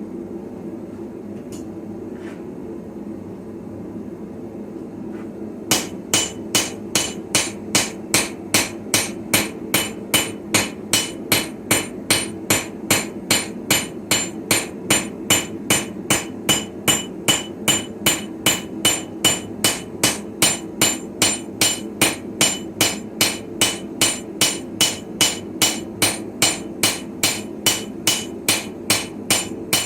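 Blacksmith's hammer striking steel on an anvil while forging a sickle blade, a steady rhythm of a little over two ringing blows a second that begins about six seconds in. Before the hammering there is a steady hum.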